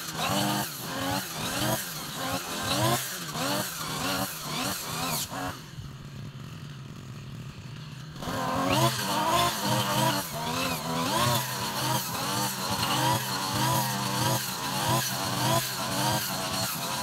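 Backpack brush cutter engine running while cutting grass, its pitch rising and falling over and over. About five seconds in it drops to a quieter, lower idle for two to three seconds, then revs up again.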